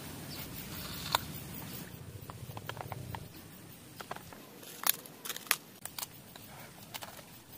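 A person eating with the hands: chewing and biting crisp food close to the microphone, with a cluster of sharp crunches and clicks about five seconds in.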